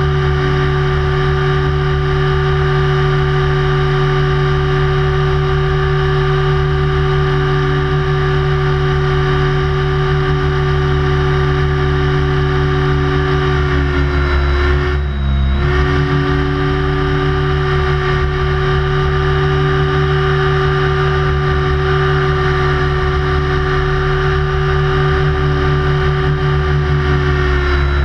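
Radio-controlled helicopter's motor and rotor heard from aboard the helicopter, running with a steady whine. About halfway through the pitch sags briefly and recovers, and it starts to drop at the very end.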